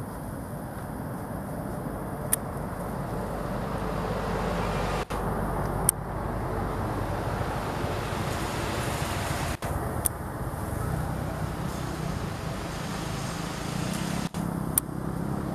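Steady low rumbling background noise, with a sharp click about every four seconds and a few brief dropouts.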